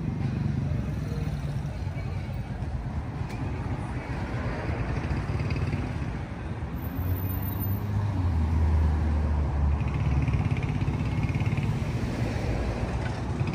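City street traffic: motor vehicles running and passing, with a deeper, louder engine hum about seven to nine seconds in.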